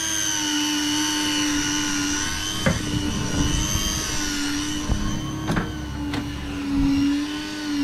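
Electric fishing reel winding in line under the load of a hooked fish, a steady motor whine that wavers slightly in pitch. A few sharp knocks break in, about a third of the way in and again past the middle.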